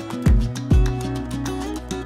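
Background music: a plucked-string melody over a steady beat.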